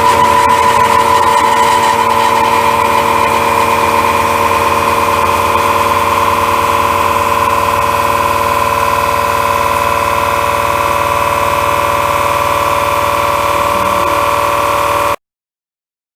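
Ceratizit Maximill A491 indexable face mill with SNHU inserts cutting A36 steel: a loud, steady whining cut with several held tones over a hiss of chips. It cuts off suddenly near the end.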